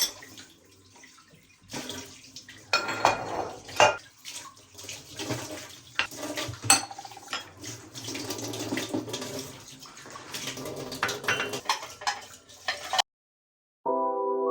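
Dishes and cutlery clinking against each other over running tap water, as when washing up at a kitchen sink. It stops suddenly near the end.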